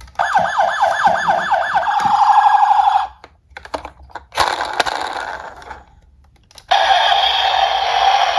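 Electronic emergency-vehicle siren sounds: a fast warbling yelp, about four sweeps a second, turns into a steady tone and cuts off about three seconds in. A few sharp clicks and a short hissy stretch follow, and from about two-thirds of the way through a steady buzzy siren tone comes on.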